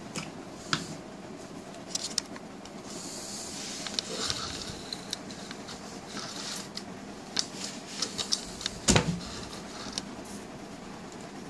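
Handling noises from a small plastic action figure being set up on a table: light plastic clicks and taps with some rustling, and one sharper knock about nine seconds in.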